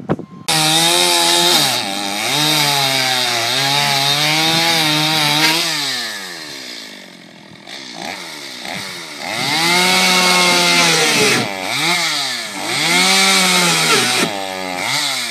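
Chainsaw catching about half a second in and running at high revs, its pitch sagging and recovering as it is throttled and loaded. It falls back to idle around the middle, then revs up again in three or four shorter bursts.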